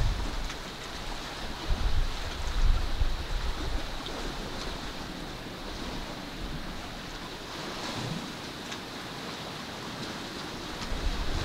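Wind blowing across the microphone: low, gusty rumbles near the start and again near the end, over a steady hiss of moving air.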